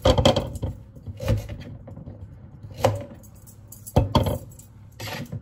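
A knife cutting radishes, knocking sharply and irregularly against the board about half a dozen times.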